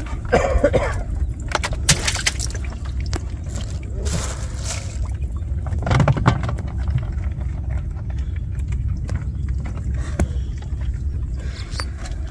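Water splashing and handling knocks in a wooden boat as a large river prawn is drawn up on a fishing line, over a steady low rumble. There are several short splashes and knocks, the loudest about six seconds in.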